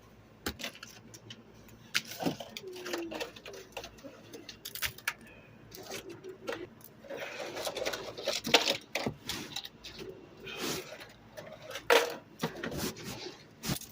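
Ice being picked and chipped out of an iced-up refrigerator: irregular clicks, knocks and scraping, with louder bursts of scraping about halfway through and near the end.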